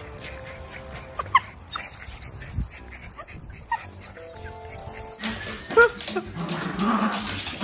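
Dogs whimpering and yelping in short, high, rising cries over background music. The cries get louder about five seconds in.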